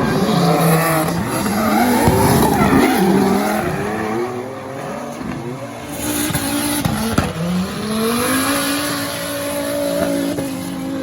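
Rear-wheel-drive-converted Audi TT drifting: its engine revs rise and fall over and over, dropping sharply twice before being held fairly steady near the end, with tyres squealing.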